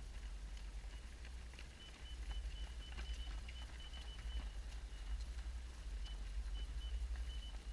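Running footsteps pattering on a forest trail, as irregular light footfalls over a steady low rumble.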